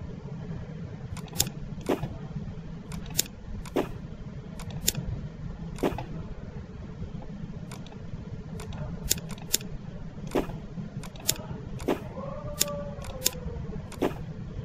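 Computer mouse clicking, a dozen or more sharp single clicks at irregular intervals, over a steady low hum.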